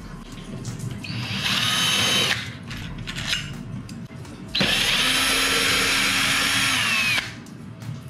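Ryobi 18V cordless drill/driver backing out the screws of a door knob lock set. It runs in two bursts, a short one about a second in and a longer, louder one from about halfway, whose whine drops in pitch as the trigger is let off.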